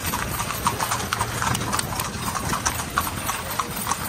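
Horse's hooves clip-clopping as it pulls a carriage, about three hoof strikes a second.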